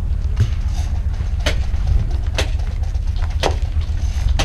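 Sharp single cracks from an airsoft firefight, five of them about a second apart, over a steady low rumble.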